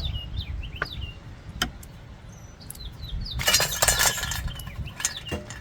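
A quick burst of clattering clinks about three and a half seconds in, like hard objects knocking together, with a few single clicks before and after. Birds chirp in the background throughout.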